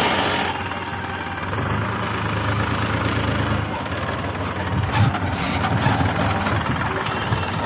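Heavy diesel engine of a tractor or backhoe loader running steadily at low speed, with a short hiss at the very start and a few sharp knocks about five seconds in.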